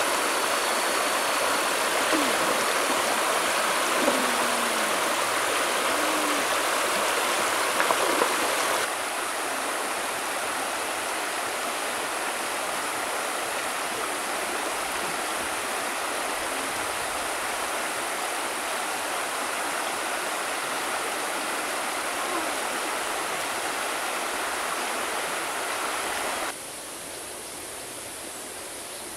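Shallow river water rushing steadily over rocks and riffles. The sound drops abruptly in loudness about nine seconds in, and again near the end, becoming a fainter steady hiss.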